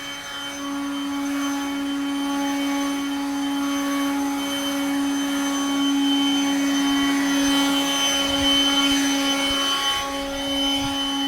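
Snowblower running steadily with a constant motor whine. Its noise swells past the middle and eases again near the end.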